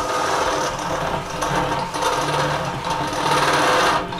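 Cordless drill running a step drill bit through a stainless steel kettle wall, widening a pilot hole; the drill cuts off near the end.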